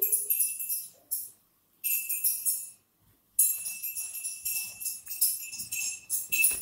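Jingle bells shaking in three bursts with short silent gaps, the last burst the longest, giving a bright, high jingle over a steady ringing tone.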